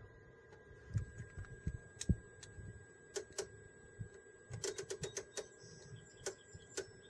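Clicking of a Tektronix 2236 oscilloscope's detented rotary switches and knobs being turned by hand: scattered single clicks, then a quick run of clicks a little past the middle. A faint steady high whine sits underneath.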